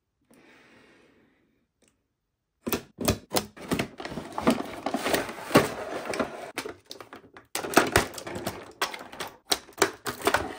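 Toy packaging and plastic pieces being handled during an unboxing: a rapid, irregular run of sharp clicks and rustling that starts about three seconds in and stops abruptly at the end.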